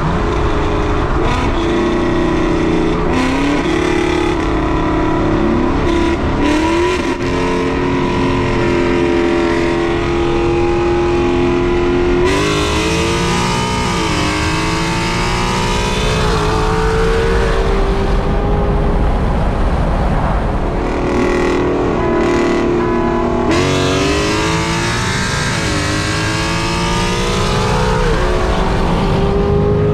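Performance car engine accelerating hard in a roll race, its pitch climbing and dropping back at each upshift several times over.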